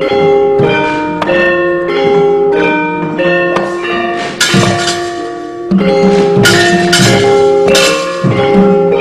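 Javanese gamelan playing: bronze metallophones strike a melody note by note, each note ringing on, with sharp percussive strokes cutting in several times in the second half.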